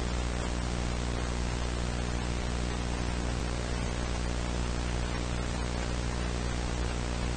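Steady static hiss with a low electrical hum beneath it.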